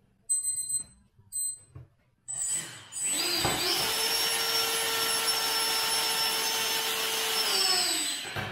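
A few short electronic beeps, then a 3D-printed 70 mm 12-blade electric ducted fan on a 4S battery spools up to full throttle. It holds a loud, steady whine and rush of air for about four seconds, then winds down near the end. It runs very fast.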